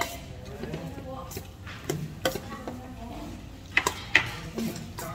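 Restaurant table clatter: scattered sharp clinks of dishes and cutlery over a low murmur of voices.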